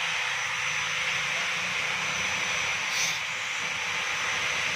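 Electric stick arc welding on a steel bracket: the arc gives a steady, even hiss.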